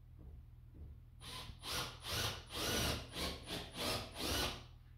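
Rhythmic back-and-forth scraping by hand at a workbench: about eight rasping strokes, two to three a second, starting about a second in and stopping near the end.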